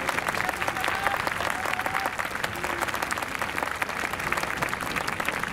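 Audience applauding steadily: a dense, even patter of many hands clapping, with a few faint voices among it in the first couple of seconds.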